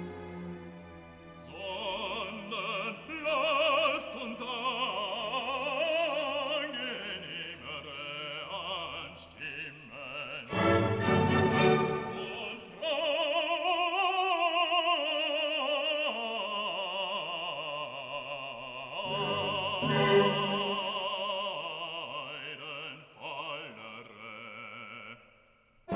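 Background music: a classical piece with operatic singing, the voice held in long notes with wide vibrato over orchestral accompaniment.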